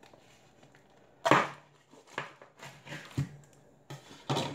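Kitchen things being shifted around on a counter: one loud clunk about a second in, then a few softer knocks.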